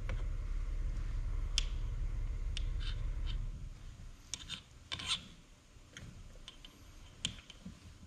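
Steady low rubbing rumble for the first three and a half seconds, then scattered light metal clicks and clinks as the steel and friction plates of a 47RE overdrive clutch pack are nudged into line with a slim tool so that their splines match.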